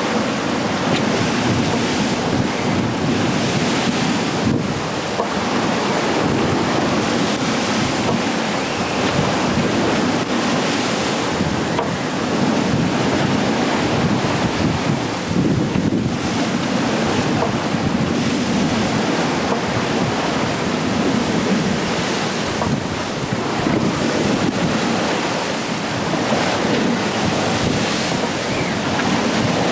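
Rough sea rushing and foaming along the hull of a sailing ship heeled over in a gale, with strong wind buffeting the microphone. The noise is steady, swelling and easing slightly as the waves pass.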